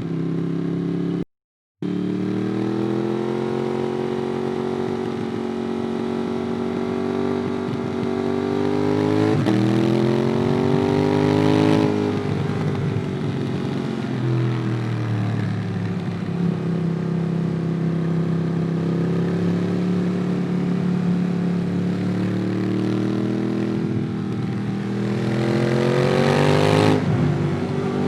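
Ducati Monster 821's L-twin engine through a QD Twin Gunshot aftermarket exhaust, heard from the rider's position while riding. It runs steadily, the revs climb and then drop sharply at a gear change about twelve seconds in, and climb again near the end with another quick drop. The sound cuts out briefly about a second in.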